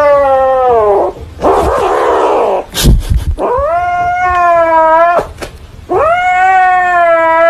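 A pet howling in three long drawn-out calls, the first falling in pitch and the other two held nearly level, with a breathy noisy stretch between the first two and a sharp click near the middle.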